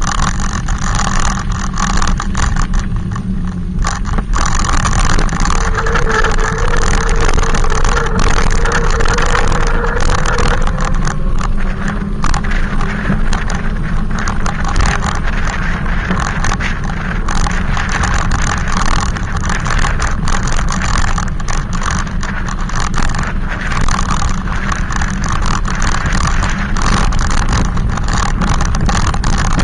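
Riding noise on a moving e-bike: a steady low rumble with rattles and clicks, under the loud motor noise of a second e-bike riding close behind. A humming tone rises out of it for several seconds about six seconds in.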